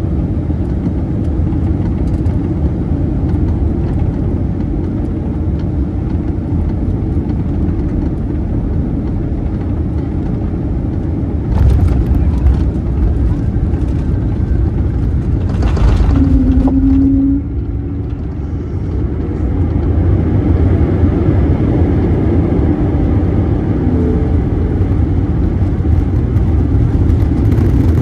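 Airbus A321neo airliner heard from inside the cabin during landing, a steady low rumble of engines and airflow. It gets louder about twelve seconds in and again around sixteen seconds, then drops off sharply near eighteen seconds, as on touchdown and rollout.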